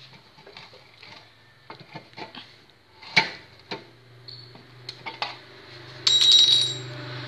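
Metal clicks and knocks as the chuck of a bench drill is handled and tightened, with one loud knock about three seconds in. A low steady hum sets in soon after, and a brief loud high-pitched ringing comes about six seconds in.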